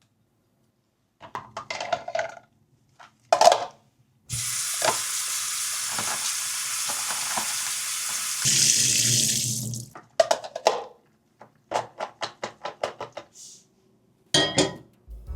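A kitchen tap running for about six seconds; about two-thirds of the way through the stream's sound changes and grows louder and fuller, as if the water is hitting something held under it, then it stops. Light clatter of kitchen things comes before it and a run of quick light knocks after it.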